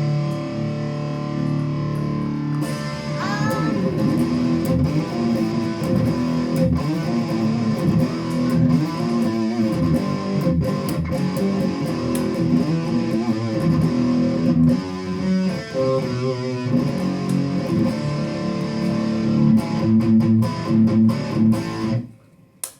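Electric guitar played through a clone Revv G3 distortion pedal on its top, most brutal gain mode. A held distorted chord rings for the first few seconds, then riffs follow with a rising string bend. The playing stops abruptly just before the end.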